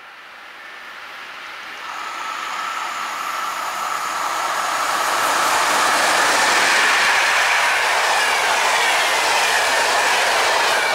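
EP09 electric locomotive hauling Intercity passenger coaches passing at speed: the rush of the train grows louder over the first half and holds at its loudest as the coaches go by. A thin high whine runs through it and glides down in pitch as the train passes.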